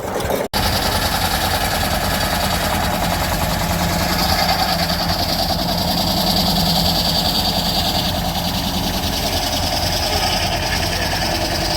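Classic tractor engine running steadily with a fast, even pulse, cutting in after a brief gap about half a second in.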